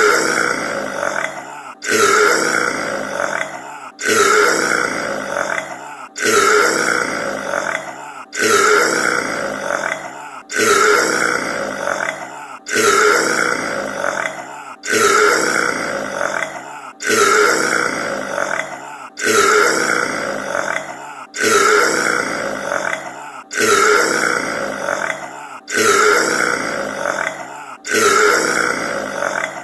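A man's long, loud burp, the same recording repeated over and over in a seamless loop, one burp about every two seconds, each starting abruptly and trailing off.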